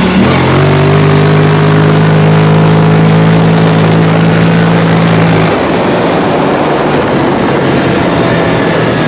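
Kawasaki Teryx 750 UTV's V-twin engine pulling under throttle, its note rising slowly, over heavy wind and tyre noise. About five and a half seconds in the engine note drops away, leaving mostly the rush of wind and tyres.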